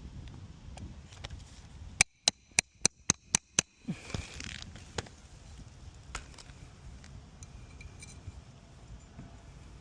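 A hammer striking seven quick, sharp blows, about four a second, on a roof during shingle repair work. A low, steady rumble runs underneath.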